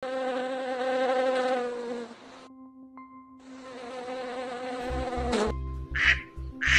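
A buzzing insect, such as a fly, droning in two stretches of about two seconds each, with a short pause between. Background music starts about five seconds in, with two short squawky calls near the end.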